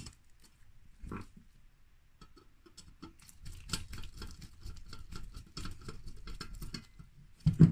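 Light metal clicks and scraping of a screw being fastened into the retaining plate of a Coleman 533 petrol stove: a single click at the start, then a dense run of small ticks from about three seconds in.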